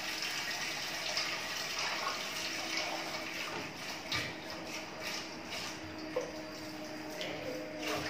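Water running from a kitchen tap into the sink, with a few light knocks from things being washed and handled in the sink.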